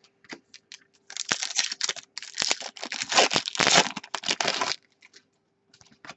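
Foil wrapper of a hockey card pack crinkling and tearing as it is opened and handled, a dense crackly rustle for about four seconds that stops near the end.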